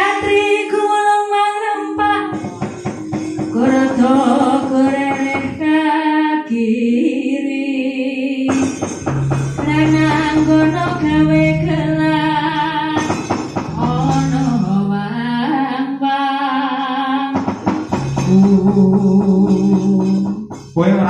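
A female sinden sings a Javanese vocal line into a microphone with gamelan accompaniment, holding long notes with bending ornaments.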